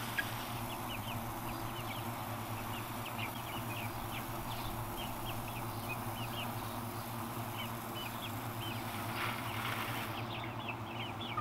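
Garden hose spraying water in a steady hiss that stops about ten seconds in, with young chickens cheeping in short rising calls throughout.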